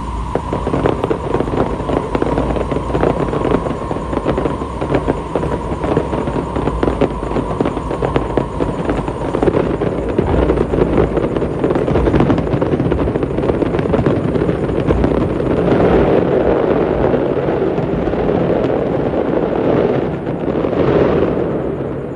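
Fireworks going off in a dense, unbroken barrage of rapid pops and crackles, swelling louder about two-thirds of the way through and again near the end. A steady high tone sounds under the pops for the first third and then fades.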